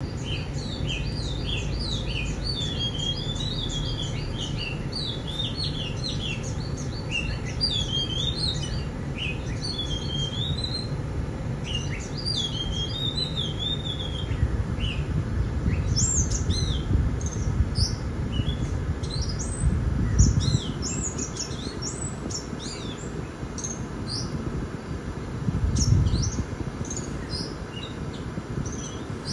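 Many birds chirping and calling in quick, rising and falling whistled notes, over a steady low rumble. The rumble swells briefly twice in the latter half.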